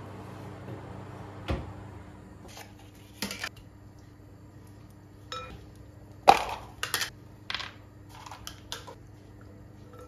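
Kitchen handling sounds: a single knock about a second and a half in, then a string of sharp clinks and knocks of utensils and a plastic tub against a glass mixing bowl, the loudest a little past six seconds in.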